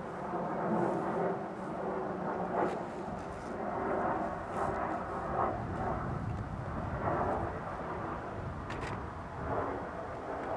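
Boeing 737-400 airliner flying over at about 3,300 ft: a continuous jet-engine rumble from its CFM56 turbofans. It grows to its loudest, about 62 dBA, around the middle and is only just starting to ease off near the end.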